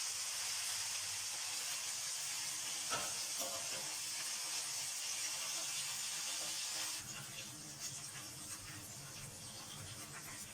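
Steady hiss of steam from a pot of boiling beef on the stove, turning quieter about seven seconds in.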